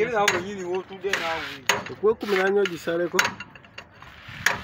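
Hammer driving a steel drift against a truck's wheel hub nut: several sharp metal strikes, irregularly spaced, with a man's voice talking during the first few seconds.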